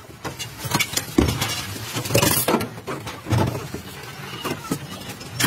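Irregular knocks and clatter of a metal bus-seat frame being handled and set in place on the wooden floor, a sharp knock about every second.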